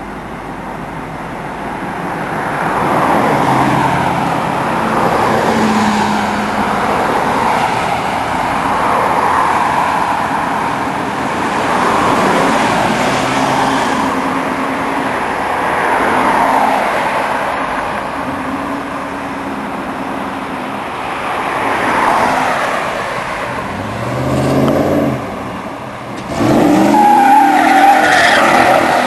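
Chevrolet Camaro Z28's V8 engine revving up and down again and again, then about 27 seconds in a sudden loud launch with the engine pitch climbing steeply and the tyres squealing as the car starts a donut.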